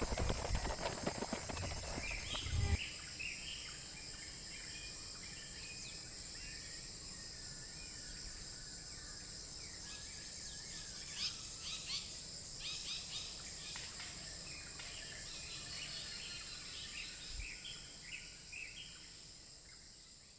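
Outdoor ambience: a steady high insect drone with birds chirping in short calls, most of them in the middle stretch. Knocking and clatter in the first three seconds.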